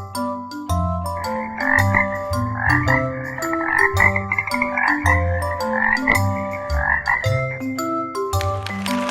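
An animal call played as a sound effect: a rapid, pulsing series of calls from about a second in until about seven seconds, over a bright marimba-style children's tune.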